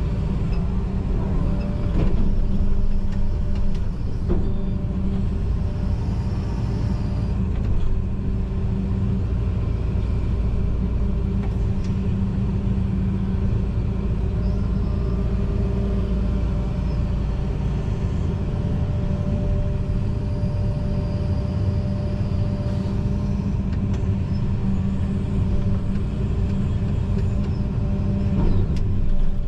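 John Deere 245G excavator's diesel engine and hydraulics running steadily, heard from inside the cab as a continuous low hum with a steady whine. A few short knocks sound through it.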